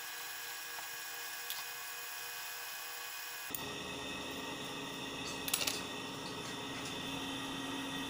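Steady background hum and hiss, which shifts abruptly about three and a half seconds in, with a short cluster of small clicks about halfway through as a hard drive circuit board is handled and freed from the alligator clips of a helping-hands stand.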